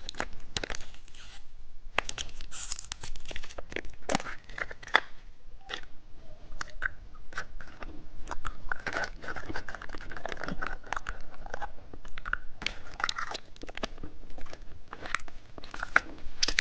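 Close-miked chewing and biting of a hamburger candy, with irregular crisp crunches and clicks.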